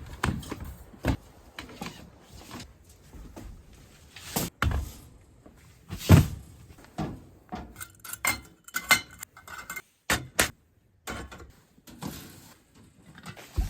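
Irregular knocks, thumps and clatter of objects being handled, with the loudest thump about six seconds in and a burst of small clicks and rattles around eight to nine seconds.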